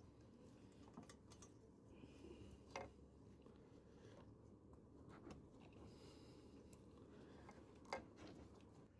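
Near silence: faint room tone with a few faint clicks, two of them a little clearer, about three seconds in and near the end.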